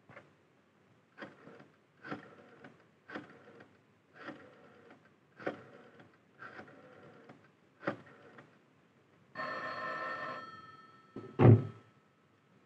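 Rotary telephone being dialled, with a short clicking, tinkling sound about once a second, one digit after another. Then a telephone bell rings once for about a second, and near the end the receiver is picked up with a loud clunk.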